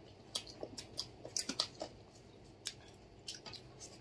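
Eating sounds of chicken curry and rice eaten by hand: wet chewing and lip smacks at irregular intervals, most of them in the first two seconds.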